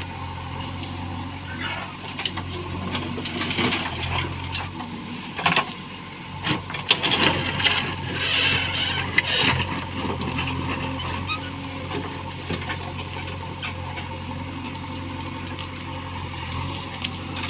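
Heavy diesel machinery engine running steadily, with a burst of clanking and knocks for several seconds partway through.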